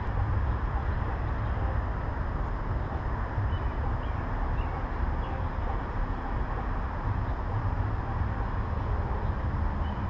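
Steady outdoor background noise with a low, fluctuating rumble, and a few faint short bird chirps a few seconds in.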